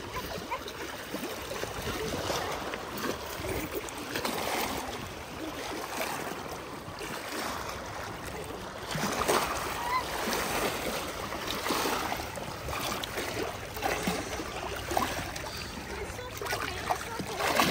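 Cold lake water lapping and trickling at the shore, a steady rush of splashing water.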